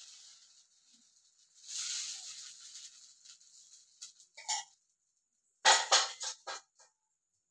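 A ladle scraping over dosa batter on an iron tawa gives a short hiss. A few sharp clinks follow, then a quick run of four or five loud knocks near the end, which are the loudest sounds: steel utensils knocking together.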